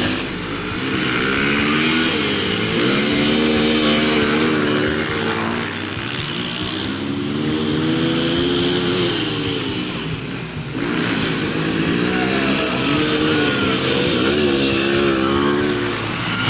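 Dirt bike engines revving up and easing off as the bikes pass one after another, the pitch rising and falling several times.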